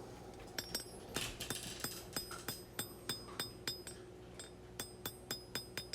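Hand hammer striking hot high-carbon steel on an anvil in a steady run of blows, about three a second, each with a short high ring, as the knife blade's tip is drawn out to a longer taper.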